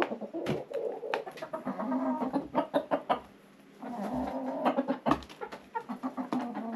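Hens and a rooster of a traditional Finnish breed clucking softly while they feed, in two stretches of low calling, among many short sharp taps.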